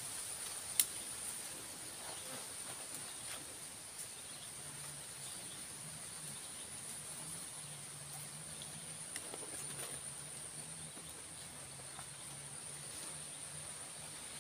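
Insects droning steadily at a high pitch in the waterside vegetation. There is one sharp click about a second in, and a faint low hum underneath from about five seconds on.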